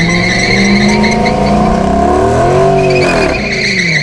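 2013 Dodge Challenger with a JLT cold air intake doing a burnout: the engine is held at high revs over a steady tyre squeal. About three seconds in, the revs swing up and then fall away.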